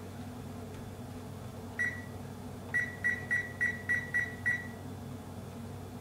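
Electronic keypad beeps of a kitchen appliance timer being set for 7 minutes: one short beep, then after a pause a quick run of seven identical beeps, about three a second.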